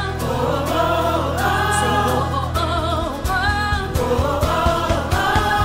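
Gospel choir singing a worship song with band accompaniment. A held low note under the voices gives way to a run of low beats about halfway through.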